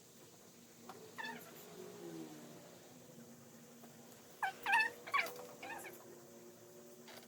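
Short high-pitched animal calls: one about a second in, then a quick run of three or four about four and a half seconds in, over a faint steady hum.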